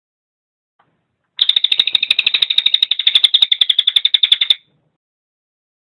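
Crested jay (cililin) giving a fast rattling call of about a dozen notes a second, lasting about three seconds and starting about a second and a half in.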